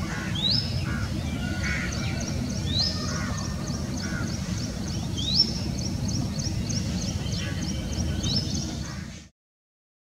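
Wild birds calling: a short, sharply rising whistle repeated about every two to three seconds, over a fast, steady, high-pitched ticking and a low rumble. The sound cuts off suddenly about nine seconds in.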